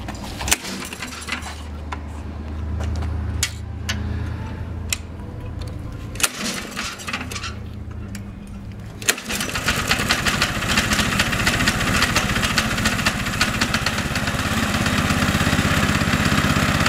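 Billy Goat Outback brush cutter's 13 HP Honda single-cylinder engine being recoil-started: a few sharp knocks from the pulls, then it catches about nine seconds in and runs steadily, getting a little louder toward the end.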